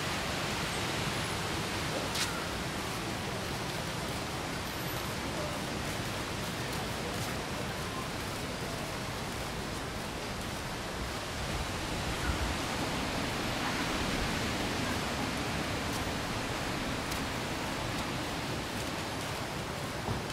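Steady wash of surf breaking on a sandy beach. There is a brief click about two seconds in and a low thump about midway.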